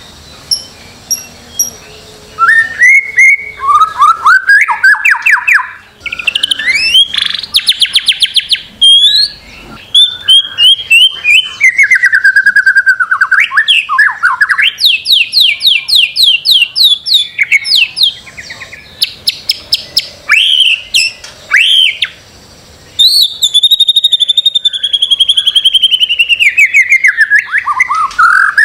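White-rumped shama (murai batu) singing a loud, varied song: runs of fast repeated notes, rapid trills and whistled phrases that slide up and down in pitch, with only short pauses between phrases.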